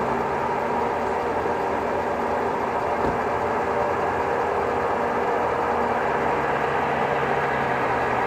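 Heavy diesel engine running steadily, with a brief knock about three seconds in.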